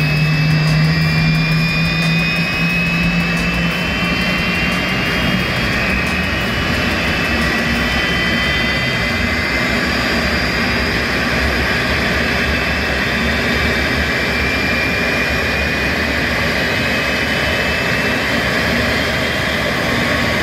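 Airliner turbofan engine running, a steady jet roar with several high whine tones that rise slowly in pitch. A low hum fades out a few seconds in.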